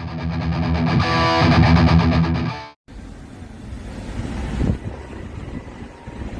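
A short burst of music with a distorted electric guitar, cut in and out abruptly and lasting under three seconds. It is followed by a steadier, quieter background noise with a brief swell in the middle.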